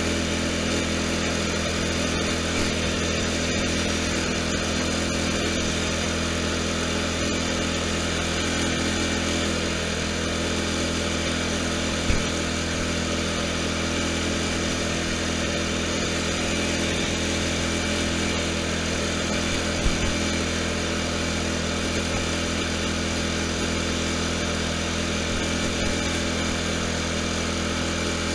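Riding lawn tractor's small engine running steadily at a constant speed as the tractor drives along, with two brief thumps partway through.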